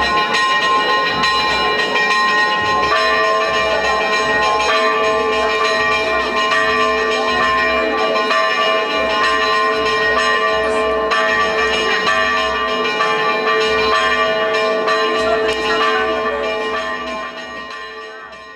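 Church bells ringing, several bells struck again and again so that their tones overlap and hang. The ringing fades away near the end.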